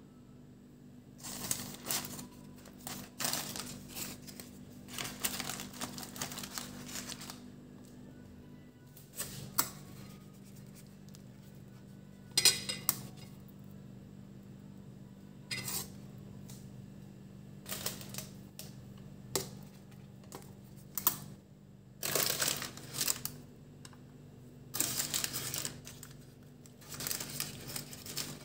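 Paper sandwich wrappers rustling and crinkling in irregular bursts as the food is handled, with a sharp clink about twelve seconds in, over a steady low hum.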